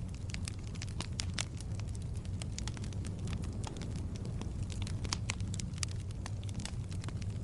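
Wood logs burning in a fireplace: a steady low rumble of flames with frequent irregular sharp crackles and pops.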